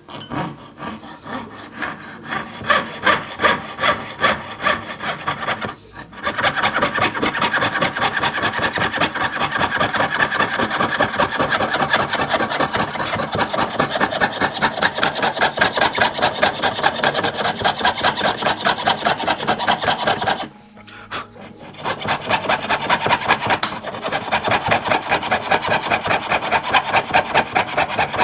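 Jeweller's piercing saw cutting through a piece of hammer-hardened cast brass, a rasping back-and-forth of quick, even strokes. The sawing stops briefly twice, about six seconds in and again about two-thirds of the way through.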